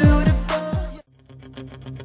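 Music with deep bass notes that slide down in pitch, cut off abruptly about a second in. After a brief gap, a quieter track with a quick, even pulse begins.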